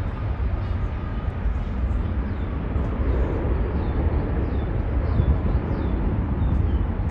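Boeing 777-200ER's twin Rolls-Royce Trent 892 turbofans at takeoff thrust as the airliner climbs out: a steady, loud low rumble and roar.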